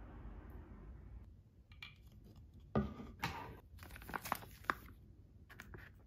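Soap bottles and a plastic refill pouch being handled on a tabletop. A knock about three seconds in, then a run of light clicks, taps and crinkling.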